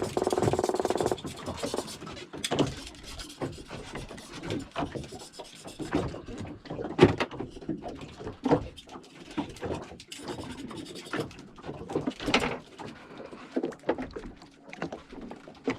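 Irregular knocks, clicks and rubbing sounds of handling on a small fishing boat, with a short pitched sound in the first second.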